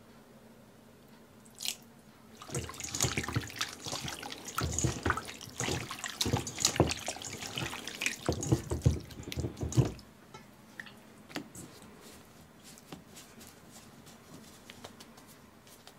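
Hands kneading chicken thigh pieces in marinade and chicken stock in a stainless steel bowl: wet squelching and sloshing for several seconds, stopping about ten seconds in. Faint light taps follow as the pieces are dredged in potato starch.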